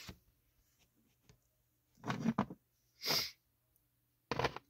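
Near silence, then a short murmur and a brief breathy, sniff-like hiss, and near the end a light click as a small plastic toy accessory is moved and set down.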